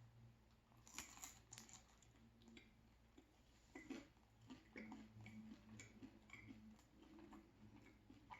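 Near silence, broken by faint, irregular clicks and soft crunches of a person biting and chewing pizza.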